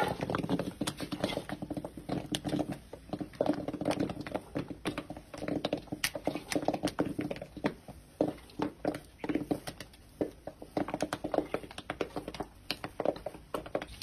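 Popcorn rustling and clattering as it is scooped with a wire-mesh skimmer out of an iron kadai and tipped into an aluminium bowl. Many sharp clicks and crackles come thick and uneven throughout.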